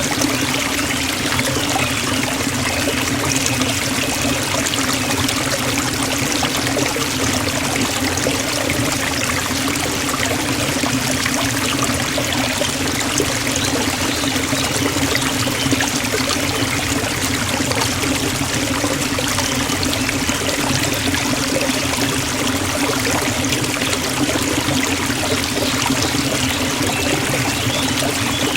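Forest waterfall: water falling and splashing in a steady, unbroken rush.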